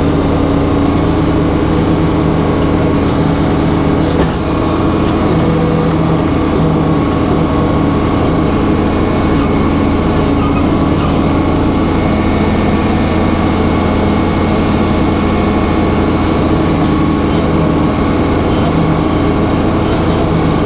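Circle sawmill running steadily under power, its engine and spinning blade making a constant drone with a brief dip about four seconds in.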